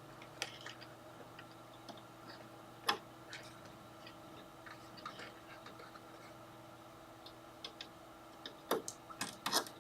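Faint steady hum of a PC's stock AMD Ryzen 7 1700 CPU cooler fan running, with scattered small clicks and taps of a case fan and its connector being handled and plugged in: one sharper click about three seconds in and a cluster of clicks near the end.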